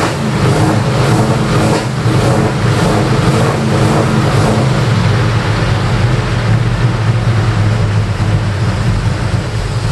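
1970 Ford Falcon XY engine idling steadily.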